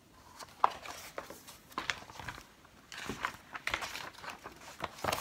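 A picture book's paper pages being handled and turned: a string of short, scattered rustles and light clicks.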